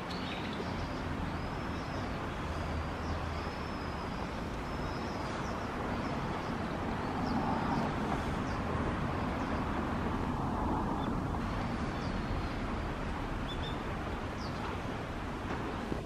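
Steady outdoor rushing noise, with faint high bird chirps a few times between about one and five seconds in and again near twelve to fifteen seconds.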